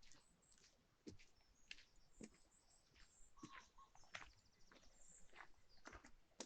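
Faint footsteps of a walker on a hill path: soft, irregular steps and ticks, with a few brief high chirps.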